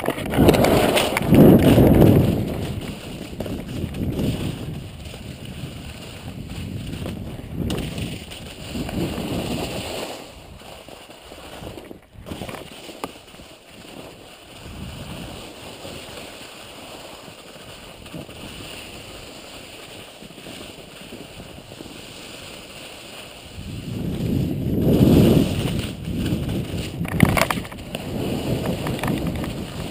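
Wind buffeting the microphone of an action camera carried by a skier going downhill, mixed with the hiss of skis sliding over snow. The rumbling gusts are loudest in the first few seconds and again over the last six seconds, with a quieter stretch in the middle.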